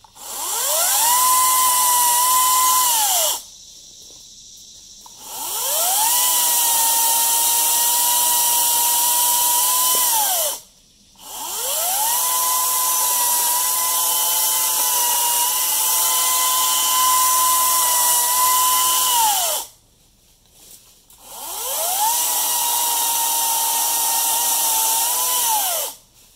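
Greenworks 60V 16-inch cordless electric chainsaw running in four bursts as it cuts brush. Each burst is a high whine that spins up, holds nearly steady, then winds down within about half a second of letting go of the trigger, as the chain brake stops the chain.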